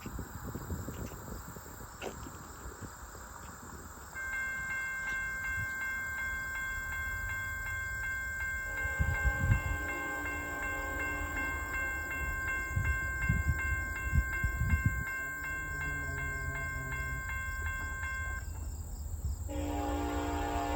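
Railroad grade-crossing warning bell starts ringing a few seconds in and stops near the end. An approaching Norfolk Southern freight locomotive's horn sounds over it in a series of blasts and is loudest near the end.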